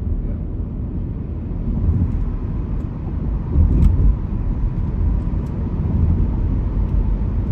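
Steady low rumble of a car's engine and tyres heard from inside the cabin while driving slowly in traffic, swelling briefly a little under four seconds in.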